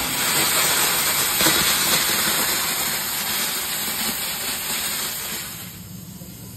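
Live-steam 5-inch gauge Austerity 2-10-0 locomotive blowing off steam from its safety valves: a loud, steady hiss that dies away about five and a half seconds in.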